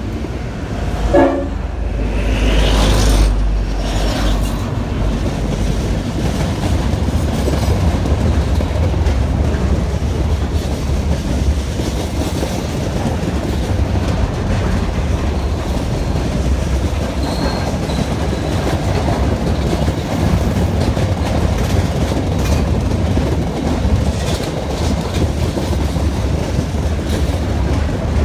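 Triple-headed diesel-electric freight train passing close beneath, its locomotives' engines droning low in the first few seconds. A short horn note sounds about a second in. The freight wagons then rumble past steadily.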